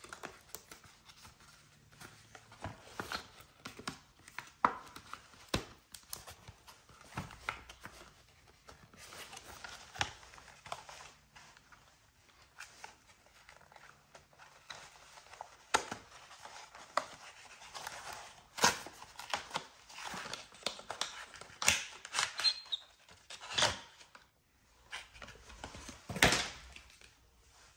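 Screen protector packaging being handled and opened: paper and plastic rustling and tearing with irregular sharp clicks, busier and louder in the second half.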